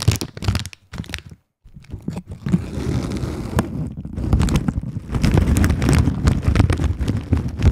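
Plastic bag of pumpkin seeds crinkled and shaken right against a microphone, the seeds rattling inside over a heavy rumble of handling noise, with a brief pause about a second and a half in.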